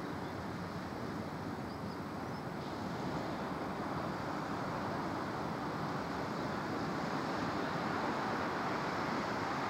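Steady rushing roar of the Severn Bore, a tidal bore breaking as it surges up the river, growing slightly louder, with some wind on the microphone.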